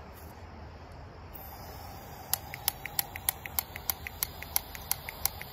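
Propane weed burner being lit: its spark igniter clicks about three times a second, starting a little over two seconds in, over a faint hiss of gas.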